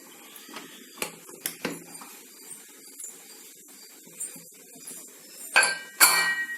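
Metal pressure cooker lid being fitted and closed: a few light clicks, then a louder clatter of metal clinks with a brief ringing near the end.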